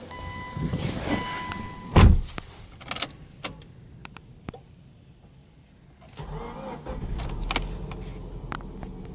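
A steady electronic chime stops with a loud thump about two seconds in, followed by a few small clicks. About six seconds in, the Subaru Legacy 2.0i's flat-four boxer engine cranks, catches and settles into a steady idle.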